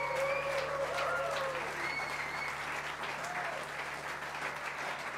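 Concert audience applauding.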